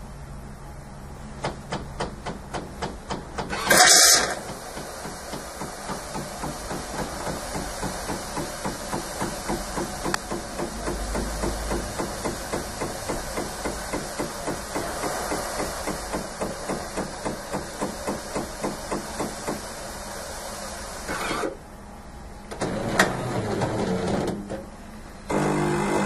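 Jura GIGA XJ9 bean-to-cup coffee machine frothing and dispensing milk for a cappuccino: a quick, even pulsing over a steady hiss, with a short loud burst about four seconds in. The pulsing stops a few seconds before the end, and shorter machine noises follow.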